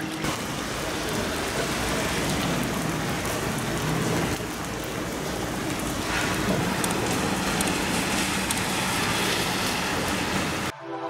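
Heavy rain falling steadily on wet pavement and streets, with rainwater running along the ground. It cuts off abruptly near the end.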